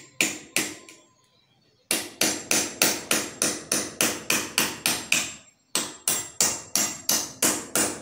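Hammer blows at a masonry wall while a satellite dish mounting bracket is fixed to it. Two strikes, a second's pause, then a steady run of about three to four blows a second, broken once by a short pause about two-thirds of the way in.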